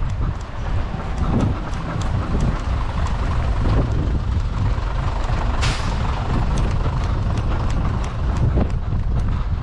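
A runner's footfalls ticking about three times a second over a steady low rumble of road traffic and wind on the body-worn camera. About halfway through comes a short, sharp hiss, like a bus's air brake letting off.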